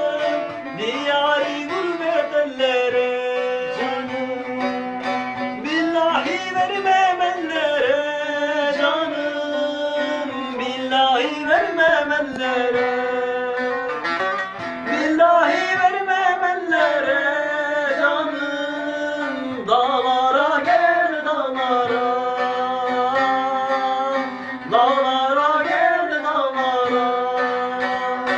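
A man singing, his voice bending and holding notes, to the accompaniment of a plucked bağlama (long-necked Turkish saz).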